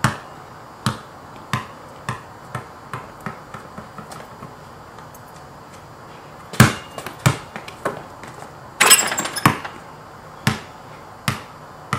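Basketball bouncing on a wet driveway: a run of bounces coming quicker and quicker until the ball settles, then after a few seconds a hard bounce starts another quickening run. About nine seconds in there is a longer rattling clatter, followed by a few slower single bounces.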